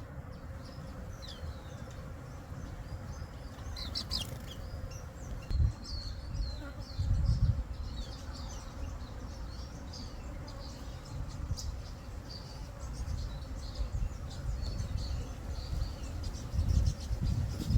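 Small birds twittering in short high chirps, scattered irregularly, over a low rumble with a few louder low thumps.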